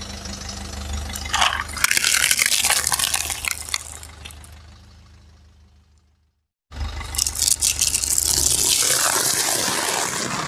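A car tyre rolling slowly over a plastic egg box full of eggs, the box and shells cracking with a burst of crackling over the car's low engine hum. After a sudden cut, the tyre crushes a pile of crunchy snack pieces with a longer, dense crunching crackle, close to the microphone.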